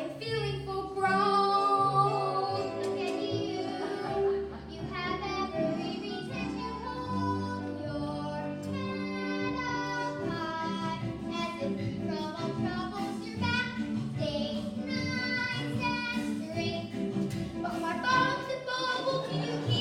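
Children singing a musical-theatre song with instrumental accompaniment: held sung notes over steady low backing chords.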